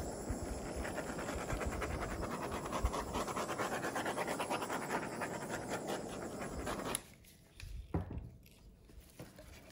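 Handheld butane torch flame hissing steadily as it is swept over a wet epoxy resin pour to heat the surface, then cut off suddenly about seven seconds in. A single knock follows a second later.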